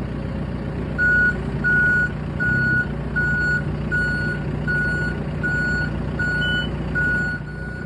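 Heavy-equipment backup alarm beeping steadily, about ten even beeps, a little more than one a second, starting about a second in, over a steady low engine sound.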